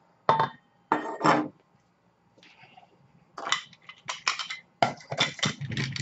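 Sharp clinks of a stainless-steel coffee scoop against the grinder and the table, then, after a short pause, a run of quick clicks and knocks as the plastic lid is handled and fitted onto a Krups F203 blade coffee grinder.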